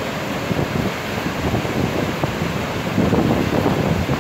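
Whitewater rapids rushing steadily over rocks, with wind buffeting the microphone; the sound grows louder about three seconds in.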